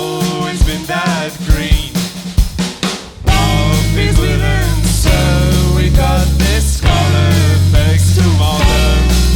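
Live rock band playing an instrumental passage: drums and melodic lines at first, then about three seconds in the full band comes in louder with heavy sustained bass.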